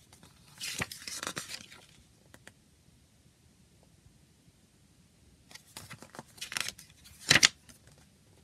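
Paper rustle of a CD lyric booklet's pages being turned twice, the second turn ending in a sharp crisp snap of the page.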